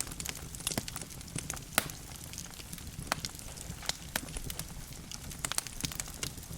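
Wood logs burning in a fireplace, crackling with irregular sharp pops over a steady low rumble of the flames.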